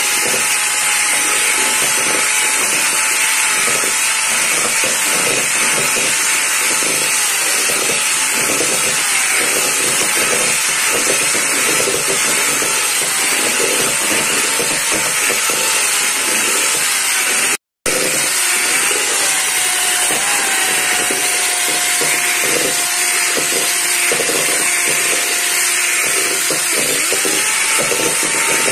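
Electric hand mixer running at speed, its twin beaters whisking eggs and sugar to a foam in a stainless steel bowl: a steady motor whine that wavers in pitch as the mixer is moved. The sound cuts out for a moment about two-thirds of the way in.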